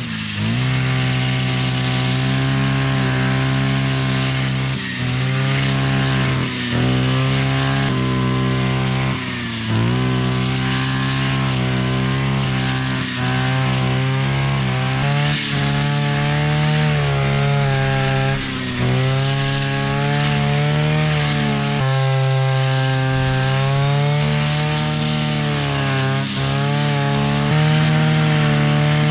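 Strimmer engine running at high revs while cutting brambles, the pitch dipping briefly and recovering every second or two as the load comes and goes.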